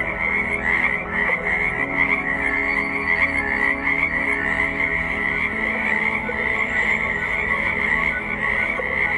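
A dense chorus of small tree frogs calling, many overlapping croaks merging into one steady, rapidly pulsing band of sound.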